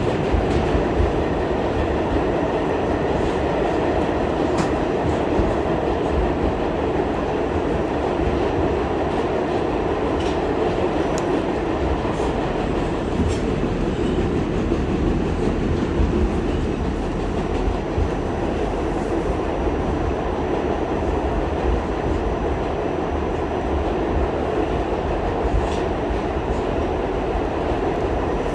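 R46 subway car running along the track, heard from inside: a steady rumble of wheels and running gear, with an occasional sharp click over the rails.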